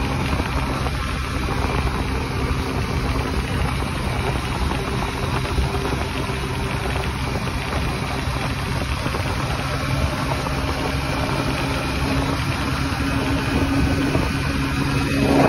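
A 125cc motor scooter's small single-cylinder engine running steadily at a cruising speed of about 80 km/h, under a constant rush of wind and road noise.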